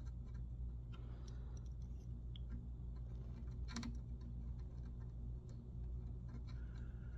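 Faint scattered clicks and small taps of a loose wire being worked into its hole in a circuit board, one click a little louder about midway, over a low steady hum.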